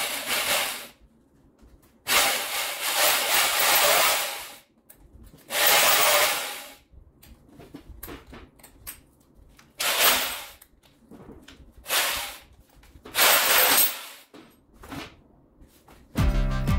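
Workshop tool noise in several separate bursts of harsh hissing, rasping noise, each lasting from a moment to about two seconds, with short quiet gaps between. Music comes in near the end.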